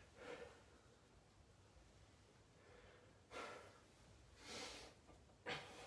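Near silence broken by a few soft breaths from a man exerting himself on bodyweight dips.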